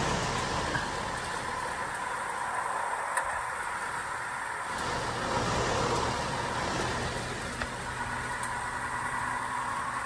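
Carrier outdoor air-conditioner condenser unit running steadily, its compressor and condenser fan going again on a newly fitted run capacitor that replaced a bulged, failed one.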